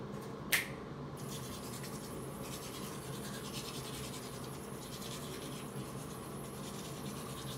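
Toothbrush scrubbing teeth: a rasping back-and-forth brushing in quick repeated strokes, with a brief sharp click about half a second in.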